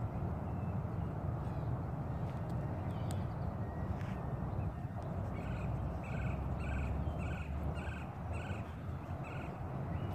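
Wind noise on the microphone, with a bird calling a quick series of about eight short notes, roughly two a second, in the second half.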